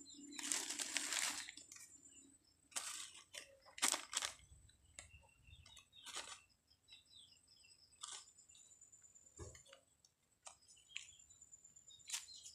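Faint, irregular crinkling of black plastic seedling polybags and the rustle of soil as the bags are filled and pressed by hand.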